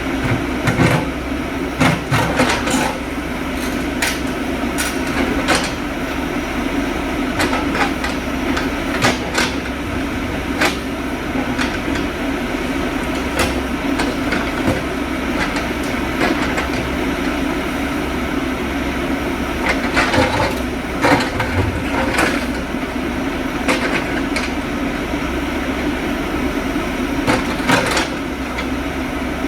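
JCB backhoe loader's diesel engine running steadily, with frequent sharp clanks and knocks from the machine's work.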